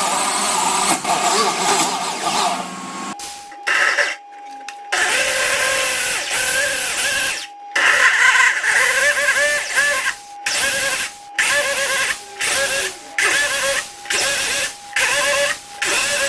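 Electric drill boring into wood. It runs steadily for about three seconds, then in short repeated bursts with brief pauses between them, as it cuts the recess for a push-to-open magnetic latch.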